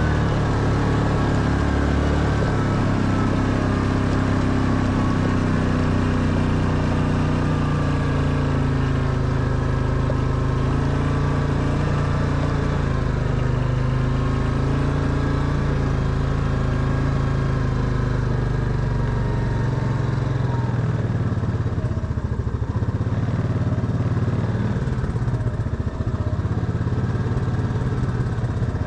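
Quad bike engine running as it rides along a gravel track, its pitch rising and falling with the throttle, then easing off near the end.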